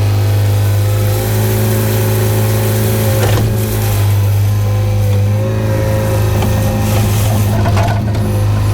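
Hyundai excavator's diesel engine running steadily under load, a strong low hum, with brief rough scraping noises about three seconds in and again near the end.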